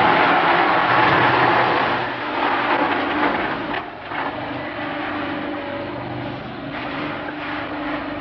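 Peanuts pouring from a sack into the stainless steel feed hopper of a drum peanut roaster, a dense rush of nuts on steel for about two seconds, then the roaster's machinery humming steadily.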